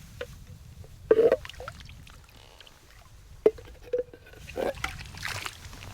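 Several short knocks and clinks, the loudest about a second in and a sharp one about three and a half seconds in, some ringing briefly, over a low steady rumble.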